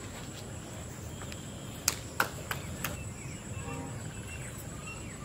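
A steady high-pitched insect trill in the background, with four sharp clicks or knocks in quick succession about two seconds in, the first two the loudest.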